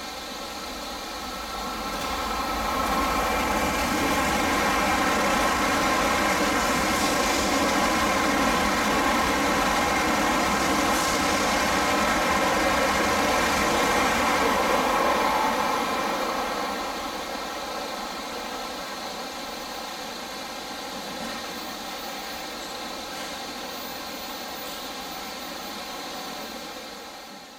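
A Tokaido Shinkansen train running past and into the tunnel. Its steady rushing sound builds about 2 seconds in, holds for roughly ten seconds and dies away as the train disappears into the tunnel, leaving a steady background hiss of rain.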